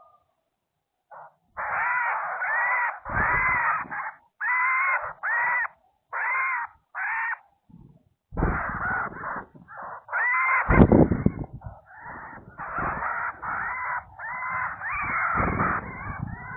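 A bird giving loud, harsh calls, short and repeated in quick runs of two or three a second after a brief silence at the start. A few deep rumbling thumps sit underneath, the strongest about two-thirds of the way through.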